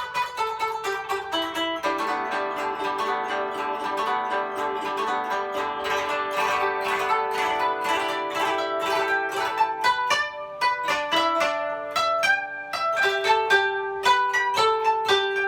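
Koto played solo: plucked notes in a fast, dense passage that thins out to sparser single notes about ten seconds in, from a piece imitating a steam locomotive.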